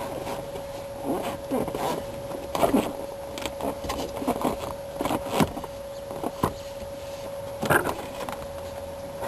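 Irregular scrapes, rustles and sharp knocks as the rear seat back of a Mercedes 420 SEL is worked loose from its retaining clips. A steady faint hum runs underneath.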